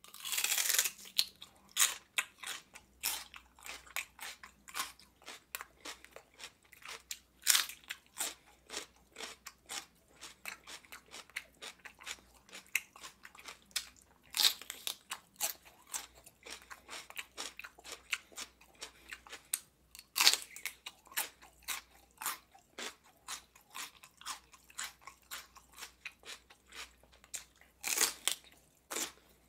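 Raw celery stalk being bitten and chewed: a loud crisp snap with each of five bites, about every seven seconds, and a steady run of crunching between them.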